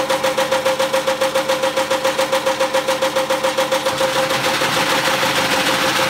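Washing machine running with a steady motor whine and a rhythmic knocking about four to five times a second; the knocking gives way to a steadier rattle about four seconds in.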